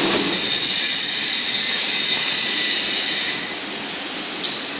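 A loud, steady, high-pitched hiss with a few faint whining tones, opening with a single click. About three and a half seconds in, it drops to a much quieter hiss.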